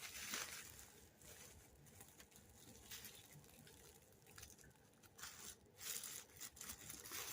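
Faint rustling, crinkling and tearing of packaging being unwrapped by hand, in scattered small bursts that grow a little busier in the second half.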